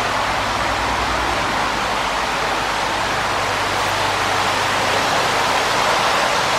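Steady rush of water flowing and splashing into indoor koi tanks, an even hiss that does not change.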